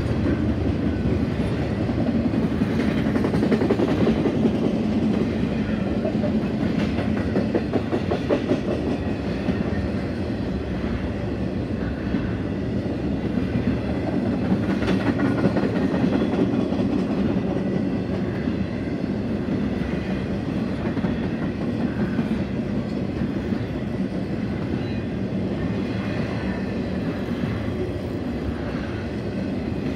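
Intermodal freight cars rolling past close by: a steady rumble of steel wheels on rail with repeated clickety-clack as the trailer-laden flatcars' wheels pass over rail joints.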